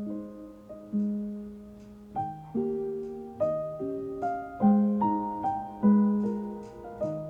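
Background music: a gentle solo piano piece, notes struck one or two at a time and left to ring and fade.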